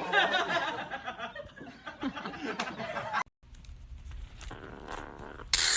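A person laughing hard for about three seconds. Then it cuts off into a quiet low hum, with a short burst of rustling noise near the end.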